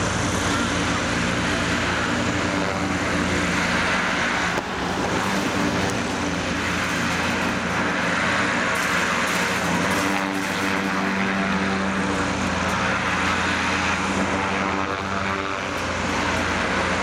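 Zeppelin NT airship's piston engines and propellers running steadily while the airship is held on the ground: an even drone with a low hum under it, its tone shifting slightly about ten seconds in.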